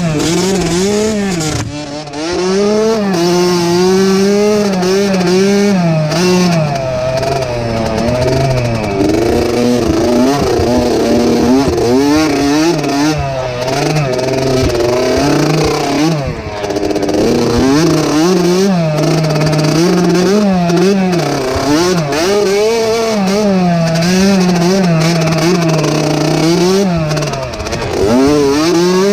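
Small youth dirt bike engine being ridden hard over rough track, revving up and easing off over and over, its pitch repeatedly climbing and falling back.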